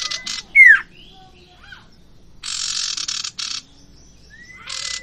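A pair of common ioras (sirtu) calling. Harsh, rasping chatter comes near the start and again around the middle, broken by clear whistles: a loud downslurred whistle just under a second in, and a long level whistle near the end.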